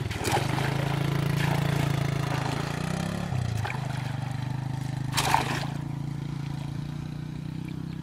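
Steady electric buzz of a battery-powered electrofishing rig (pole electrode wired to a floating power box), its pitch stepping a little about three seconds in. A brief splash about five seconds in.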